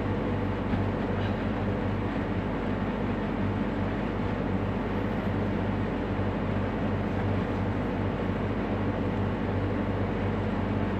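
Steady, even noise with a low hum.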